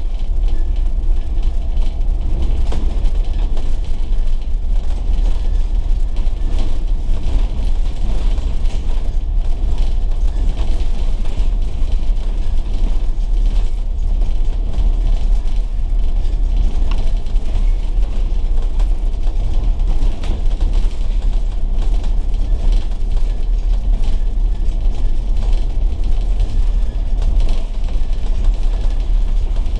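Volvo B9TL double-decker bus's six-cylinder diesel engine running, heard from inside the bus as a steady low rumble.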